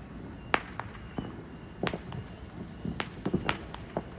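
Fireworks and firecrackers going off: a string of sharp, irregular cracks and pops, the loudest about half a second in, with several more in quick succession near the end.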